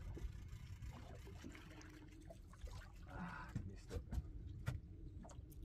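Sea water lapping and trickling against the hull of a small fishing boat over a low steady rumble of wind on the microphone. A few faint clicks come from the fishing reel as the line is wound in.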